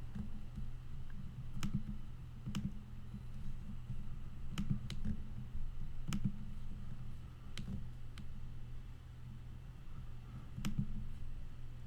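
Computer mouse clicking: sharp single clicks every second or two, spaced unevenly, over a low steady hum.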